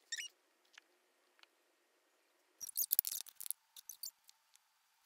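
Squeeze bottle of white glue squeaking and sputtering as it is squeezed empty, glue and air forced out of the nozzle in short, high-pitched bursts. A few small ones come at the start, the loudest cluster a little past halfway, then scattered squeaks.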